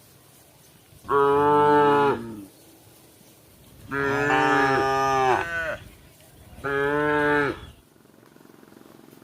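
Cow mooing three times: a call about a second in, a longer one near the middle, and a shorter one near the end.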